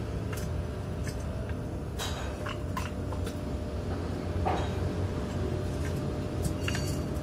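Steel pieces clinking and knocking as they are handled and fitted together, a few light strikes scattered over a steady low hum.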